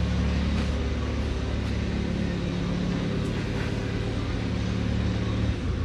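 Steady low mechanical hum of a running machine, even throughout, with a few faint clicks over it.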